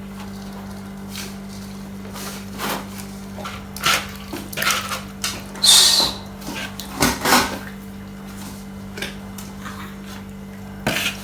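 Irregular knocks, scrapes and clatter of kitchen utensils and bowls being handled while dough is prepared, loudest about six seconds in, over a steady low hum.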